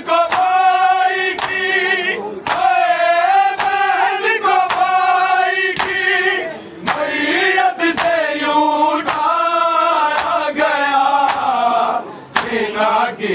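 Men's voices chanting an Urdu noha lament in chorus, with sharp rhythmic slaps repeating about every 0.6 s, the beat of matam (chest-beating) keeping time with the chant.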